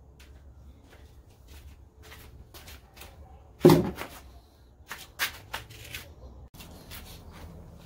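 Handling noise from the camera being touched and set in place: a string of light clicks and knocks, with one loud thump about three and a half seconds in and a few sharper clicks a second or two later.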